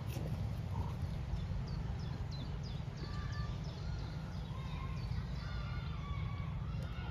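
Wind rumbling on the microphone, with small birds chirping and whistling over it. The quick falling chirps come more often from about a second and a half in.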